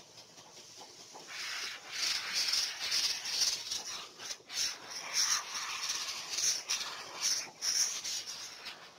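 Compressed-air spray gun hissing as it sprays epoxy primer onto a motorcycle wheel hub, starting about a second in, the hiss swelling and fading about twice a second.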